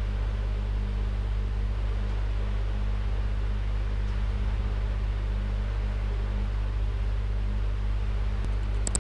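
Steady electrical hum with an even hiss: the background noise of the narrator's recording setup, unchanged throughout, with a couple of faint ticks near the end.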